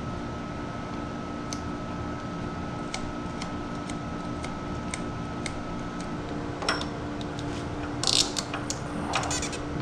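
Hand tools and metal parts clicking and clinking during a Kawasaki KX65 dirt bike teardown, with scattered single clicks and a louder metallic clatter twice near the end, over a steady hum.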